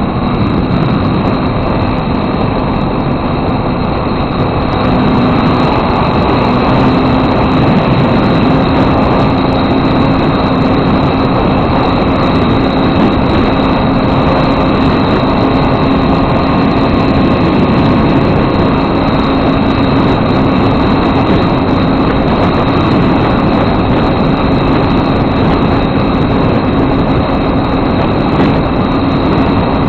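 Motor and propeller of a foam RC airplane running steadily under heavy wind rush, heard through the onboard camera's microphone. The hum gets a little louder and higher about five seconds in, then holds steady.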